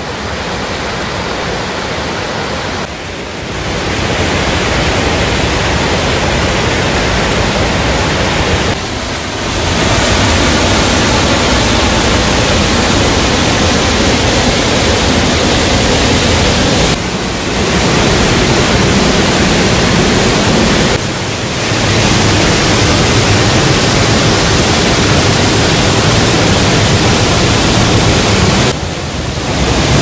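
A waterfall splashing into a shallow rocky pool: a loud, steady rush of falling water. It gets louder after the first few seconds and dips briefly about five times where the shots change.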